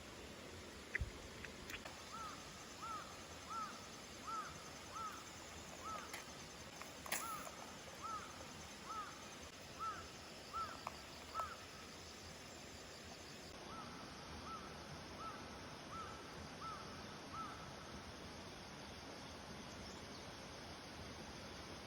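A bird calling in a regular series of short notes, about one and a half a second, in two runs with a pause between, over the steady rush of a stream. A couple of sharp clicks sound briefly in the first half.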